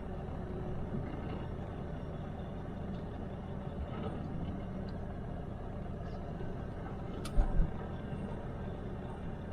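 Truck engine running steadily at low speed, heard from inside the cab while parking, with two short knocks about seven and a half seconds in.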